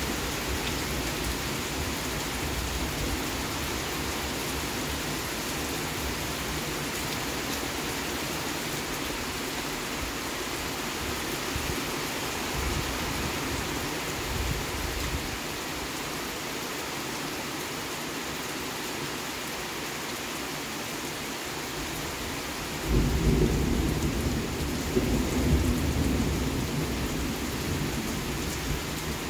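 Steady rain falling during a thunderstorm, with a loud rumble of thunder that breaks in near the end and rolls on for several seconds.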